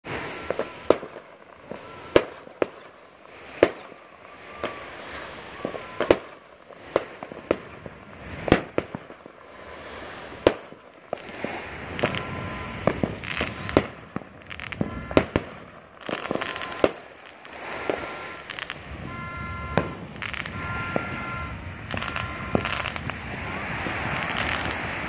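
New Year fireworks and firecrackers going off: a long run of sharp, irregularly spaced bangs. In the middle stretch, short steady tones sound again and again, and near the end the bangs give way to dense crackling.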